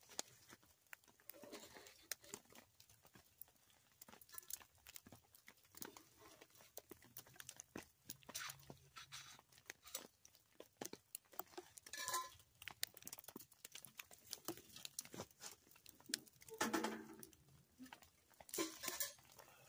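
Faint scattered clicks, knocks and rustling from a generic wood-burning tent stove and its pipe being handled and taken out, with a few louder clanks near the middle and end.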